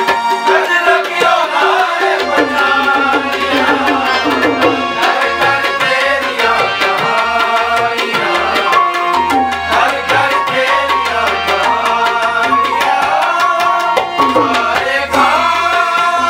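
Tabla drums played with a harmonium and an electronic keyboard carrying an ornamented melody: live accompaniment to a Punjabi Christian devotional song (masihi geet).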